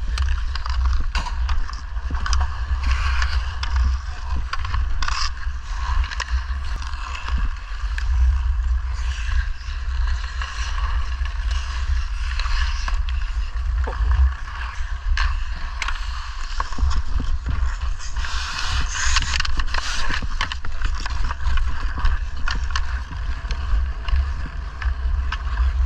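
Hockey skate blades scraping and carving on outdoor ice, with scattered clicks of sticks and puck, under a steady low rumble of wind on the microphone.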